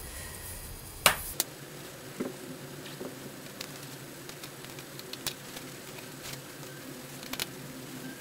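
Scattered sharp metal clicks and taps from a small screwdriver and tiny screws on the aluminium bottom cover of a MacBook Pro as the cover is screwed back on, the loudest pair about a second in. A faint steady hum runs underneath.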